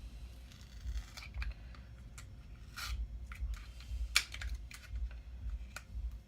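Scattered light clicks and a brief rustle, with one sharper click about four seconds in: hands handling a server's CPU and socket during a processor swap.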